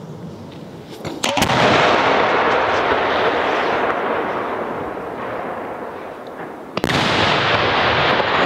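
Fireworks exploding: a sharp bang about a second in followed by a long rushing noise that slowly fades, then another sudden burst and rush near the end.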